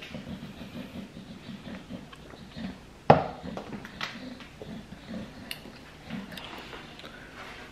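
Drinking from a plastic cup: faint mouth and swallowing sounds with handling noise, and one sharp knock about three seconds in.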